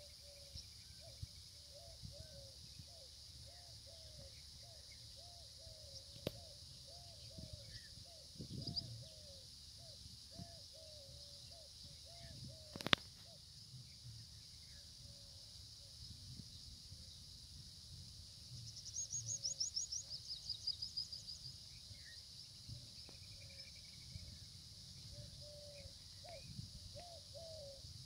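Faint open-country ambience: a bird repeats a short low note about once or twice a second over a steady high drone. A brief high trill comes about two-thirds of the way in, and a single sharp click comes just before the middle.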